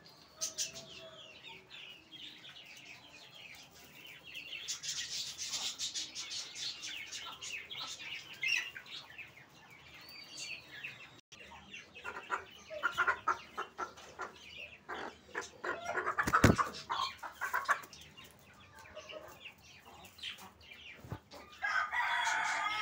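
Aseel chickens and chicks clucking and peeping, with many short high cheeps in the first half. In the second half comes a run of taps and knocks, the loudest a single sharp knock midway, and then a burst of clucking near the end.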